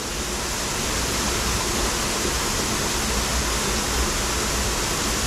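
Steady rushing of falling water from a garden waterfall: an even hiss with a low rumble beneath it.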